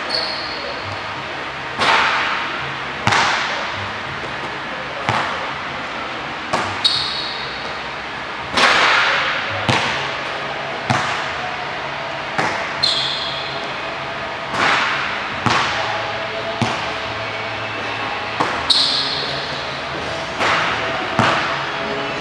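Basketball thuds echoing around a large gym, one every second or so, with sneakers squeaking on the court floor four times.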